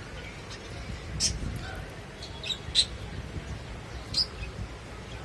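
Pet lovebirds giving several short, sharp, high chirps, scattered a second or so apart, the loudest about three seconds in, over a low background rumble.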